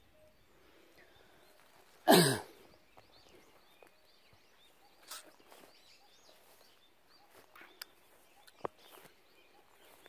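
A man's single short, loud sneeze about two seconds in, against a quiet background of faint scattered bird chirps and a few light clicks.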